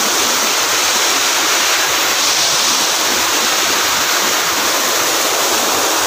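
Small waterfall: water pouring over rocky ledges in a steady, even rush.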